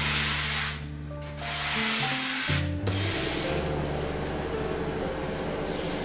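An electric palm sander running on a Bastogne walnut picture frame in two stretches, with a short break about a second in. From about three seconds in there is a softer, steady rubbing as a cloth wipes finish onto the wood, over background music.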